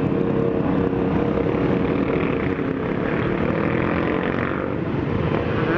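Motorcycle engines running steadily at cruising speed, heard from the rider's own bike with other motorcycles of the group riding close alongside.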